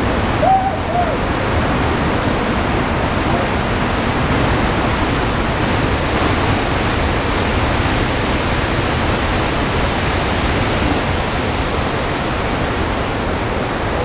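Steady roar of heavy surf mixed with wind noise, with a brief high whoop from a voice about half a second in.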